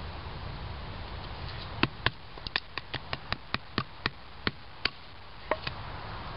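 A short wooden baton tapping the spine of a knife to split a small cedar stick: a run of about a dozen quick, sharp taps, about four a second, starting about two seconds in with the first two the loudest, then two more taps near the end.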